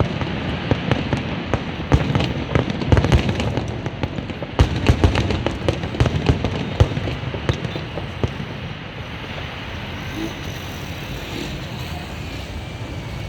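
Fireworks display: a rapid run of aerial shell bangs and crackling for about eight seconds, then thinning out to scattered pops over a steady rumble of noise.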